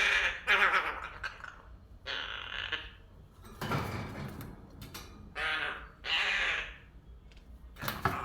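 Young crow calling: a series of about six harsh caws, each under a second long, with short pauses between them.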